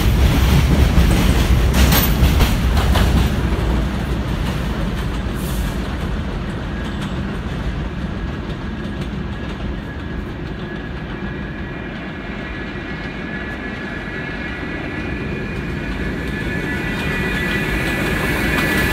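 An R46 subway train pulls away, its low rumble and wheel clatter fading over the first few seconds. An R68 train then approaches, its rumble growing toward the end with a high steel squeal that comes in near the end as it nears the platform.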